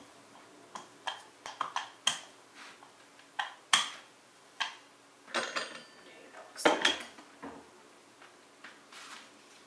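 Rolling pin working scone dough on a plastic cutting board, making irregular clicks and knocks, with two louder clattering stretches a little past the middle.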